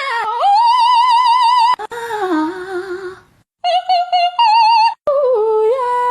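Cat meows tuned by machine into a sung melody: held notes with a wide vibrato, a short break halfway through, then a few quick notes and more long held ones.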